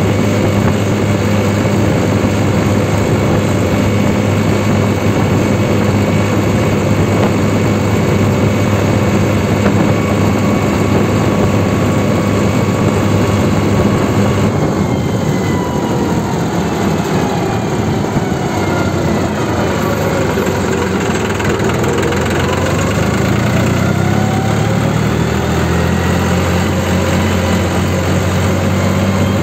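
New Holland 3630 Super Plus tractor's diesel engine running at a steady speed as the tractor drives along the road. About halfway through, its note starts to waver and shift in pitch.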